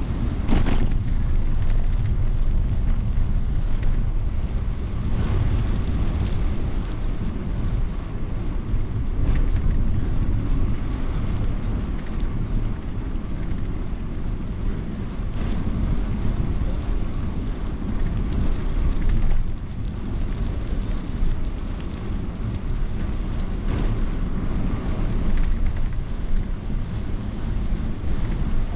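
Wind buffeting the microphone of a camera on a moving bicycle: a steady low rumbling rush, with one brief sharp sound about half a second in.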